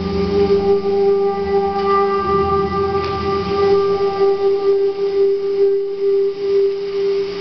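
Eurorack analog modular synthesizer playing one long sustained tone with a few overtones above it, held at a steady pitch. A low drone underneath drops away about two seconds in.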